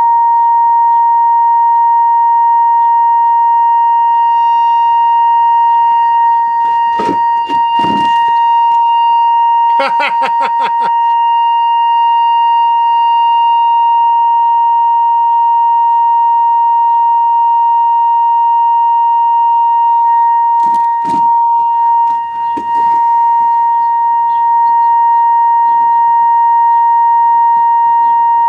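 A steady test tone of about 1 kHz from a Grundig tube radio's loudspeaker, demodulated from the signal generator's FM test signal and coming through without distortion at high deviation. A few brief crackles and knocks break in about seven, ten and twenty-one seconds in.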